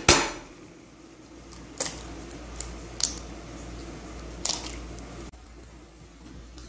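Sharp taps and clicks of an egg being knocked against a bowl and cracked open: a loud click right at the start, then four short taps spread over the next few seconds, over a low steady hum.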